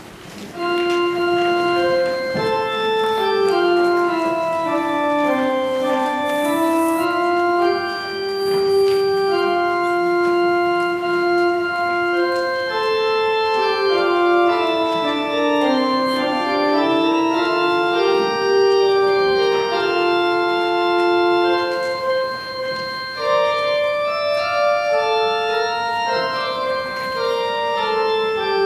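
Church organ playing a slow melody in held notes, the line stepping down and back up, starting about a second in.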